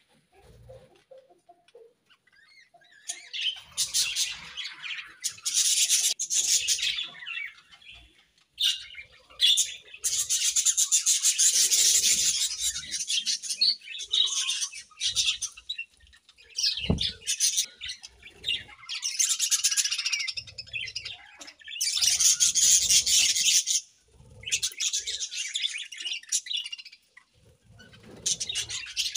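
Budgerigars chirping in bursts of a few seconds with short breaks, the longest and loudest run about ten seconds in.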